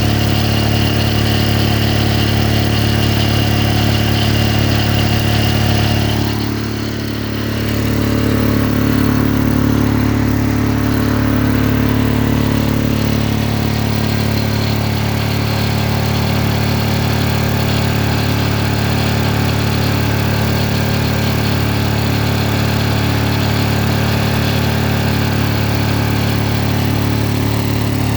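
King Canada 5000 W diesel generator engine running steadily, with a brief dip in loudness and pitch about six seconds in. It is running too fast, overspeeding so that the outlets read about 140 V on the 120 V side.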